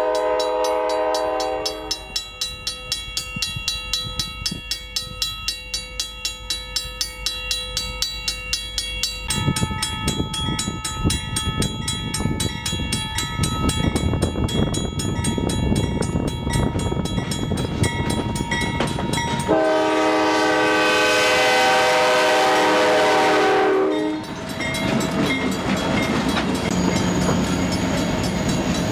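Level-crossing bell ringing at about three strokes a second as a CSX diesel freight train approaches. Its multi-chime horn sounds briefly at the start and again for about four seconds a little after the middle, while the locomotives' engine and wheel rumble builds and they pass close by near the end.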